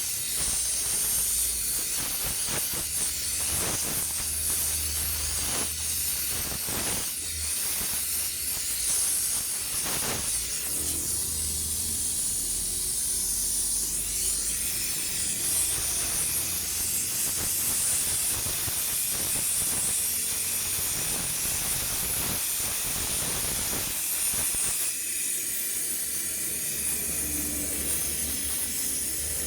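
Welding arc on aluminium hissing steadily, with frequent crackles and a low hum that comes and goes.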